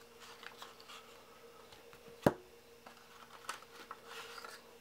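Faint handling noise from a cardboard card-game box and its contents being opened and pulled out, with one sharp click a little over two seconds in and a few lighter ticks later.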